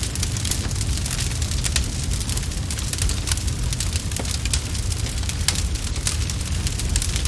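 Wood fire in a fireplace crackling, with many quick irregular pops and snaps over a steady low rumble.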